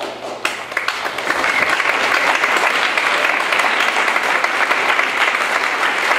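Audience applauding: a few separate claps at first, building within about a second into steady, sustained applause.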